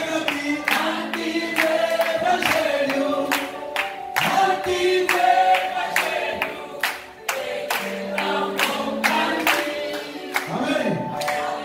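A man singing a worship song into a microphone, with a group of voices joining in, over a steady beat of sharp hits two or three times a second.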